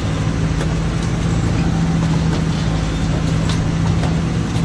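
A pilot boat's engines drone steadily under way, heard inside the wheelhouse, with a low hum over a constant rushing noise of water and wind on the hull.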